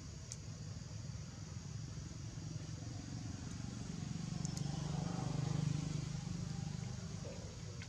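Engine hum of a passing motor vehicle, swelling to its loudest about five to six seconds in and then fading.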